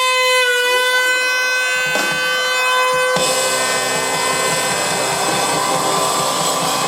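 Air horns sounding long held notes: a single horn tone that dips slightly at first and holds for about three seconds, then a lower, fuller chord of several horns that comes in and holds.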